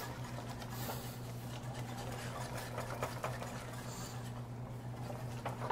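A plastic-coated whisk working through thickening béchamel sauce in a saucepan: soft, irregular light ticks and scrapes against the pot, over a steady low hum.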